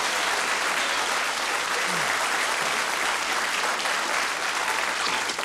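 Studio audience applauding steadily, a dense clatter of many hands that eases off near the end.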